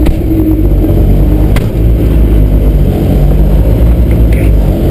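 Rally car's engine running steadily, heard from inside the cabin, with a single sharp click about a second and a half in.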